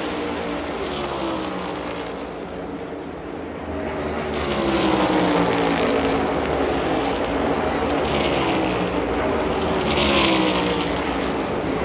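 A pack of NASCAR Cup Series stock cars running flat out, their V8 engines a continuous drone that drops in pitch as each group sweeps past. The sound eases briefly about two seconds in, then swells again as more cars arrive.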